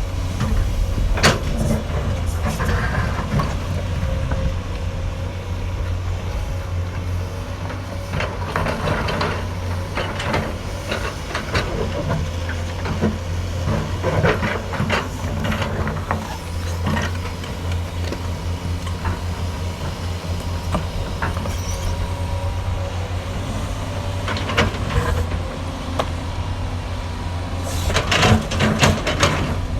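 Hydraulic excavator's diesel engine running steadily under load, with intermittent metallic knocks and clatter from the machine at work, heaviest near the end.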